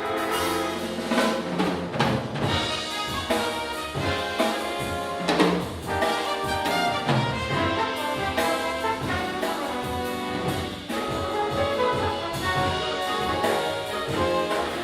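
A jazz big band playing, with the brass section (trumpets and trombones) carrying the tune over a drum kit.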